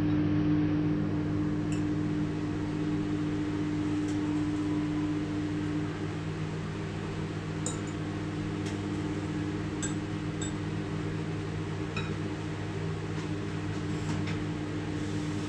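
Steady hum of a running kitchen appliance, with one of its tones dropping out about six seconds in. A few faint clinks of dishes are heard over it.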